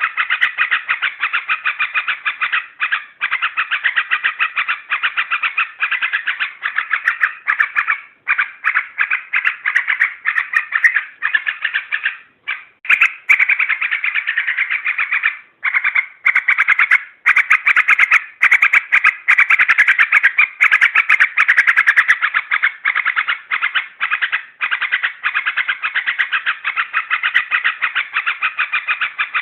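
Yellow-vented bulbul (trucukan) song: a dense, continuous run of rapid chattering notes with only a few brief pauses. It is a lure recording meant to provoke bulbuls into singing.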